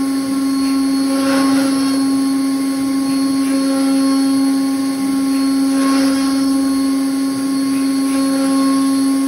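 CNC router spindle running with a steady hum while its bit cuts a plastic sheet, the cutting noise swelling and fading every two to three seconds as the tool moves along its path.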